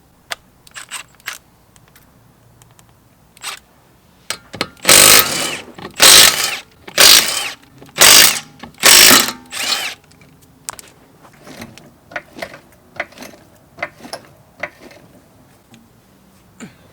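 Ratcheting hand tool working: a few light clicks, then five loud rattling bursts of about half a second each, roughly one a second, then scattered clicks and knocks.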